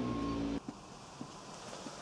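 A vehicle engine running steadily, which cuts off abruptly about half a second in. After that there are only a few faint clicks.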